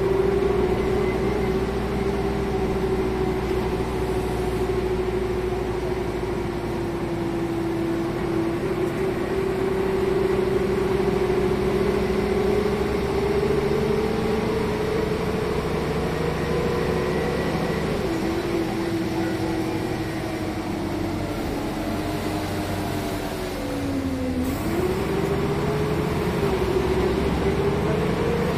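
Renault R312 city bus under way, heard from on board: the diesel engine and drivetrain run steadily under a pitched whine that drifts with road speed, dipping near the end and then climbing again as the bus pulls away.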